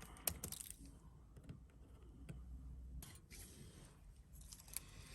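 Faint scattered clicks and ticks of small repair tools on an open iPhone XR as its internal connectors are unclipped, with a sharper click about a third of a second in and another near the end.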